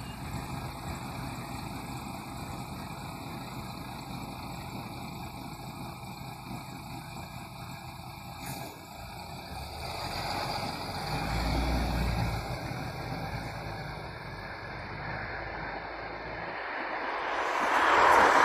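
Articulated city bus running at a stop, then its engine rising to a low rumble as it pulls away about two-thirds of the way through. Near the end an approaching car's engine and tyre noise swells to become the loudest sound.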